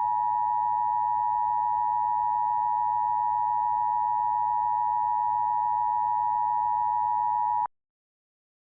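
Steady electronic test tone held at one pitch, the kind a TV station airs while off the air, cutting off suddenly near the end.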